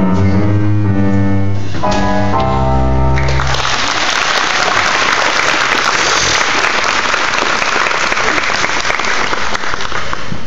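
A song's closing chords sound for about the first three seconds, then audience applause takes over and runs steadily to the end.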